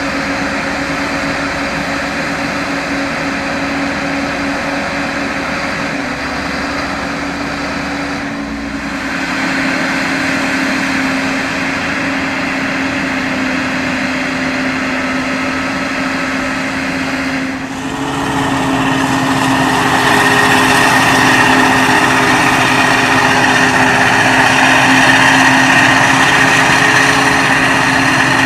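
Heavy maize-harvest machinery running steadily: big diesel engines of the forage harvester and tractors. The sound changes abruptly twice, about 8.5 and 18 seconds in; after the second change it is louder, with a high whine.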